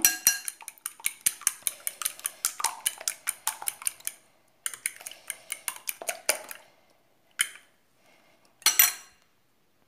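Metal fork beating eggs in a bowl, the tines clicking fast against the bowl, about five clicks a second. The beating pauses briefly about four seconds in, stops about six and a half seconds in, and is followed by two single taps near the end.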